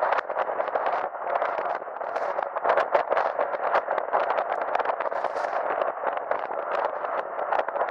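Strong, gusty wind buffeting the microphone: a continuous rough rushing noise broken by constant irregular crackles. It covers the Boeing 777's GE90 engines, which are not heard.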